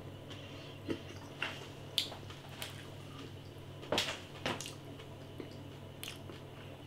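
A person eating roast potatoes: a scattering of short, sharp wet clicks and taps, the loudest about four seconds in, over a faint low steady hum.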